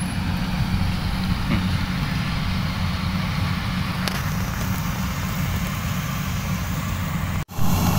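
Rice combine harvesters' engines running with a steady low drone as they cut the field; the sound breaks off for a moment near the end.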